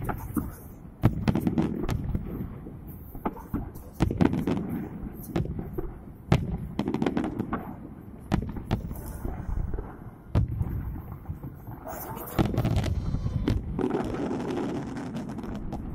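Aerial fireworks shells bursting in quick succession: sharp bangs every second or so over a continuous low rumble of echoing reports.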